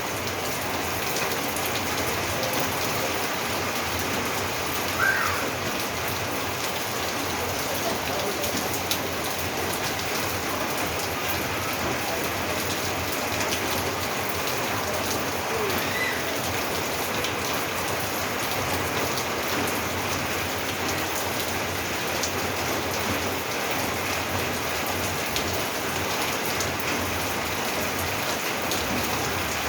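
Steady rain falling on a roof, a dense even patter of drops, with one brief sharper sound about five seconds in.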